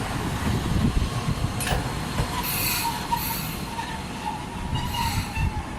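Toden Arakawa Line tram running on its rails with a steady low rumble, its wheels squealing high-pitched in the middle and again near the end.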